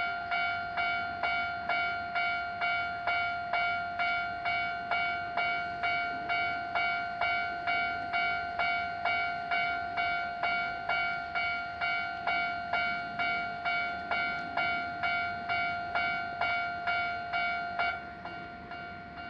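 A Japanese railroad crossing's warning bell starts ringing: a single bright ding repeated about twice a second, steady in pitch. About eighteen seconds in it carries on at a noticeably lower volume.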